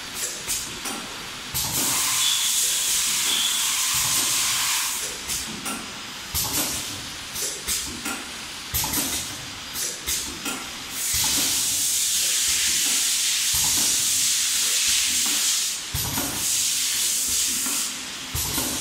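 Wet wipe packing machine running: repeated short mechanical knocks and clicks, broken by two long stretches of loud air hiss lasting several seconds each, one about two seconds in and one about eleven seconds in.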